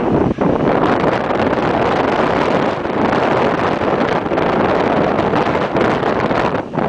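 Wind buffeting the microphone: a loud, rushing noise that flutters irregularly, with brief dips.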